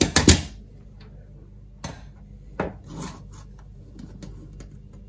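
Self-adjusting wire strippers clamping and snapping as they strip the jacket off a coax cable, a quick cluster of sharp clicks at the start. Two single sharp knocks follow about two seconds in, then light handling on a wooden table.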